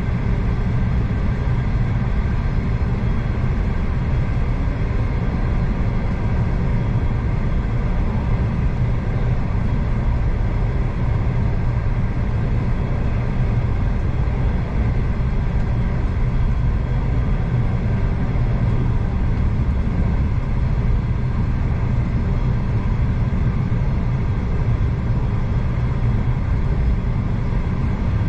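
Steady low rumble and hum of a V/Line passenger train running along the track, heard from inside the carriage.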